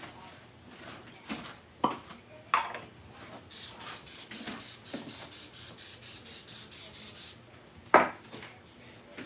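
Kitchen utensils knocking against cookware a few times, with about four seconds of quick, even scraping in the middle.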